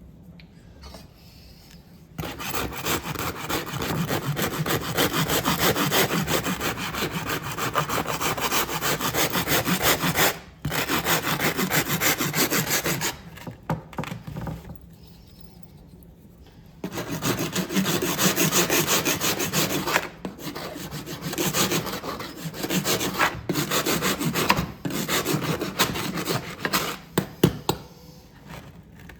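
Rapid back-and-forth rasping strokes, like sawing or scrubbing against a hard surface, in several long runs broken by short pauses.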